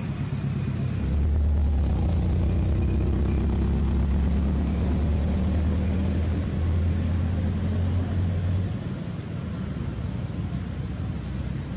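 A low rumble that starts about a second in and eases off near the end, over a faint steady high-pitched hum.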